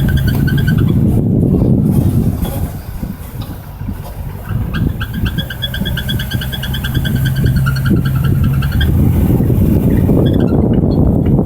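Land Rover Discovery 1 making a rapidly pulsing, high-pitched squeal over the low drone of the running vehicle; the squeal fades about a second in and returns from about five to nine seconds in. It appeared after new rear brake pads, a U-joint, a rotoflex coupling and a gearbox mount were fitted, and its cause is unknown.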